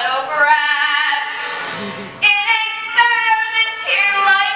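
Young performers singing on stage with music.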